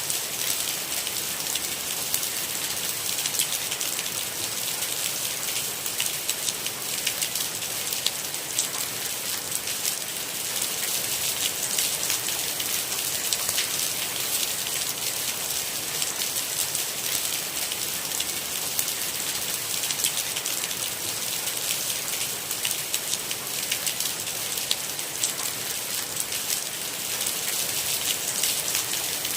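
Steady rain, a dense patter of many individual drops over an even hiss, unchanging throughout with no thunder.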